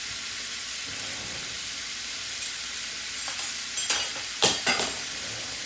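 Chicken pieces frying in a pan with a steady sizzling hiss. A few sharp scrapes and knocks come in the second half, loudest about four and a half seconds in.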